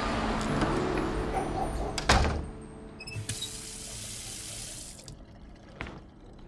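Water running from a tap into a sink, with one loud knock about two seconds in, then a fainter high hiss for about two seconds.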